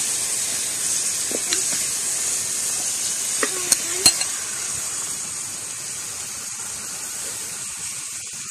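Raw chicken pieces sizzling as they go into hot oil with fried shallots, green chillies and ginger-garlic paste in a wide metal pan. The sizzle slowly fades, with three sharp knocks against the pan about three and a half to four seconds in.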